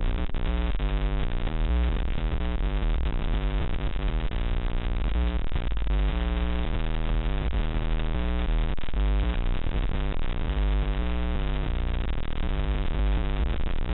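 Harsh, glitchy electronic bytebeat-style noise music played by the Mandela.exe malware payload: a dense stream of rapidly changing buzzy tones with a thin, lo-fi sound. It is the sign that the malware's payload is running.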